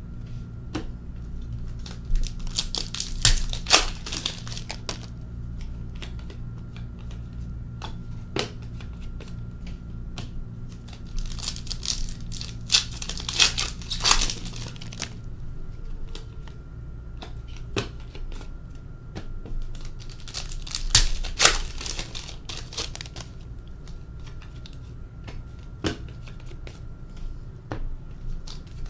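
Foil wrappers of Artifacts hockey card packs being torn open and crinkled, in three bouts of a few seconds each, with light clicks of cards being handled in between.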